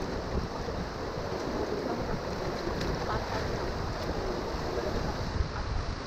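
River water rushing along a raft's inflatable pontoons, with wind buffeting the microphone.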